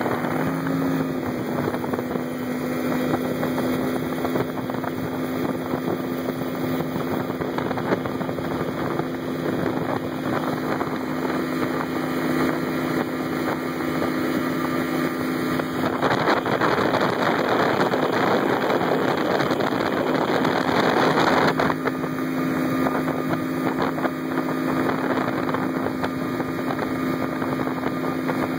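Bass boat's outboard motor running steadily at speed, a constant engine drone under wind rushing over the microphone. The rushing grows louder for several seconds past the middle.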